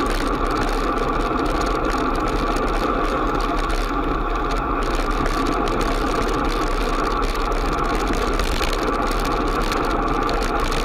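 Steady, even wind and traffic noise picked up by a bicycle-mounted camera riding along a busy road, with no distinct events.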